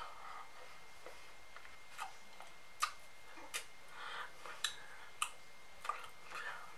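About half a dozen soft, irregular clicks and taps with a few faint breathy sounds, made by a person's hands and mouth as she signs without speaking.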